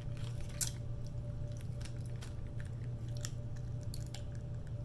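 Close-up chewing and biting of food, with many short, wet mouth clicks, the sharpest about half a second in, over a steady low hum.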